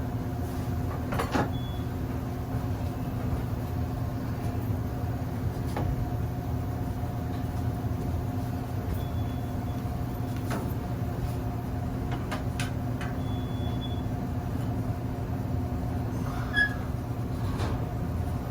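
Natural draft gas furnace running with a steady low rumble and hum, firing with failed combustion. A few sharp clicks and several short, faint high beeps come through it.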